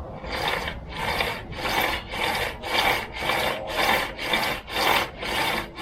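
Rasping back-and-forth strokes of a hand tool scraping on a part, about two strokes a second, evenly repeated.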